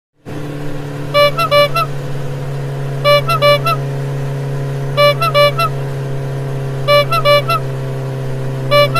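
Steady low vehicle engine drone with a horn sounding over it in groups of four short toots, repeating about every two seconds.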